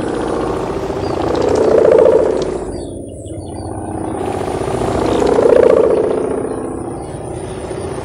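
Kite hummer (sendaren) of the 'mesin brujul' kind on a flying winged kite: its taut ribbon vibrates in the wind with a loud, engine-like droning hum. The hum swells and fades twice, loudest about two seconds in and again past the middle.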